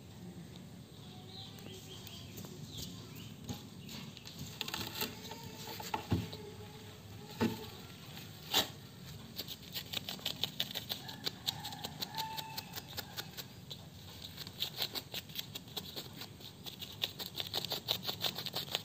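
Patter of a baby monkey's hands and feet scrabbling over plastic artificial turf: scratchy rustles and light clicks, with a few sharper clicks just before halfway, then growing dense and quick.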